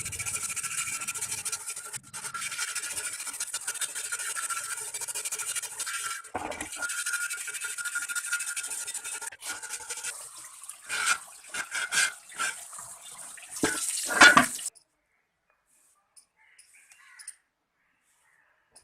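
Steady brushing or scrubbing noise, broken by short pauses, then a few sharp knocks before it stops about three-quarters of the way through.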